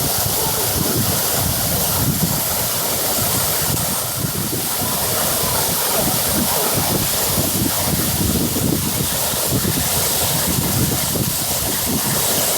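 Waterfall rushing: falling water making a steady, loud, even noise.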